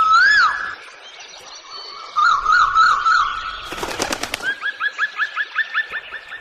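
Birds calling in clear whistled notes: a rising-then-falling whistle at the start, a short warbling run about two seconds in, then a quick series of rising chirps, about five a second, through the second half. A brief burst of rapid clatter comes a little past halfway.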